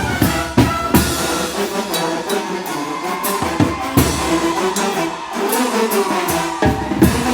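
Brass band (banda de viento) playing a muertero and calenda rhythm: brass carrying the tune over bass drum and snare. The low drum beats drop out for a couple of seconds mid-way, then return.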